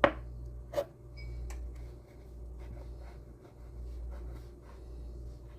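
Hands working biscuit dough on a kitchen counter: a sharp knock right at the start and another just under a second in, then soft scraping and rubbing over a steady low hum.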